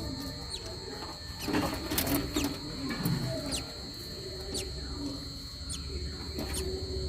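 Lovebirds chirping: short, shrill, falling chirps repeated every half second or so, over a steady high-pitched whine.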